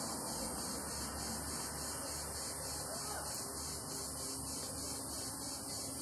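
Steady high-pitched insect buzzing outdoors, pulsing evenly all the way through, over a faint low rumble.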